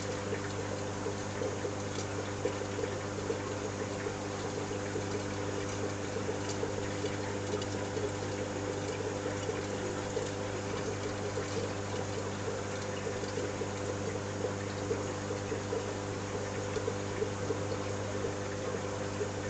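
Steady trickle of water over a constant low hum, typical of a marine aquarium's circulation pump and water return.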